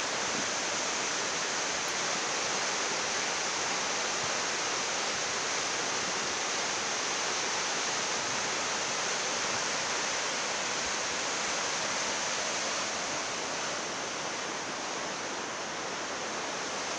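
Flash-flood torrent of muddy water rushing and churning, a steady unbroken wash of noise.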